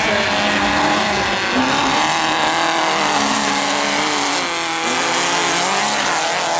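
Race engines of off-road tube-frame buggies running hard on a dirt track, several at once, their pitch rising and falling as they rev and ease off.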